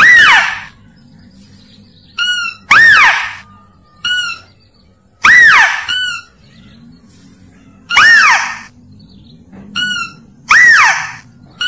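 Mouse-deer (kancil) lure call played in a loop: five loud squeals, each rising then falling in pitch, about every two and a half seconds, with a shorter, fainter call between each pair.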